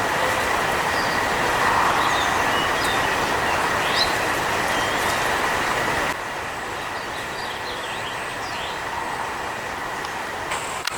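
Steady rushing vehicle noise with a thin steady whine; it drops suddenly in level about six seconds in. Short bird chirps sound over it.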